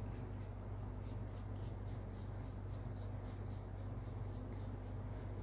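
Trading cards being thumbed one by one from hand to hand, a soft flick of card on card about three times a second, over a low steady hum.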